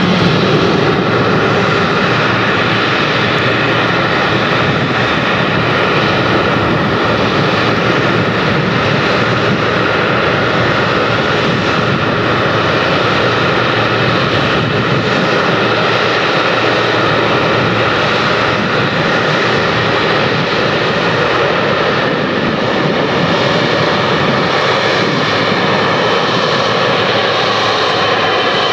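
Boeing 777 jet engines running at taxi power as the airliner rolls along the taxiway: a steady jet noise with several high whining tones held over it.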